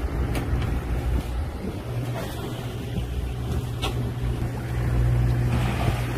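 Fishing boat's engine running with a steady low hum, which firms into a steady low drone about two seconds in. A couple of light clicks sound over it.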